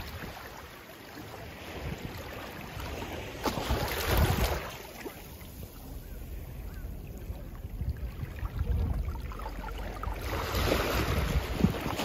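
Small sea waves lapping and washing over a rocky, seaweed-covered shore close to the microphone, with wind buffeting the microphone. A louder wash comes about four seconds in and again near the end.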